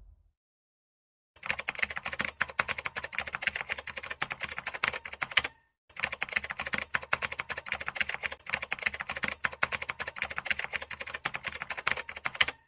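Typing sound effect: rapid, irregular key clicks, starting about a second and a half in and pausing briefly near the middle.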